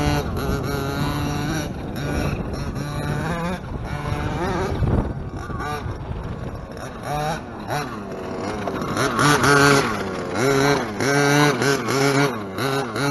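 Zenoah G320 32cc two-stroke engine of a 1/5-scale RC monster truck with a race-ported head, revving up and down again and again as the throttle is worked, loudest about nine seconds in.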